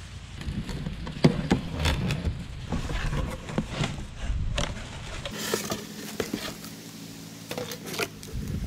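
Cardboard shipping box being opened by hand: flaps pulled open and folded back, with a run of scrapes and knocks of cardboard, then softer rustling after about five seconds.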